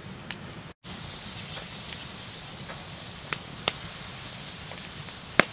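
Wood campfire crackling: a steady hiss with a few sharp pops, the loudest near the end.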